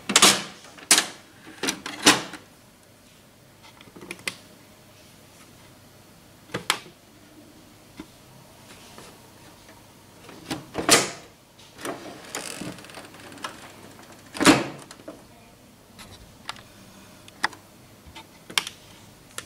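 Irregular plastic clicks, knocks and snaps as the DR-1030 drum unit and toner cartridge are handled in a Brother DCP-1510E laser printer and the printer's cover is shut. The loudest knocks come in the first two seconds, about eleven seconds in, and about fourteen and a half seconds in.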